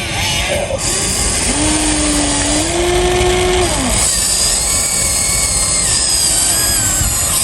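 Huina 1593 radio-controlled excavator's small electric motors and gearboxes whining as it works. The pitch shifts up and down as different functions start and stop, with a higher-pitched whine taking over about halfway through.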